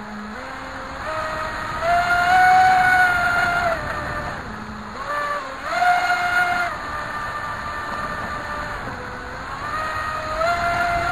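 Brushless inrunner electric motor (3660-size, 3180 kV, water-cooled) driving the water-jet pump of a radio-controlled jet ski, heard from on board: a high whine that climbs and falls with the throttle, loudest about two seconds in and again around six seconds, and climbing again near the end, over the rush of water and spray.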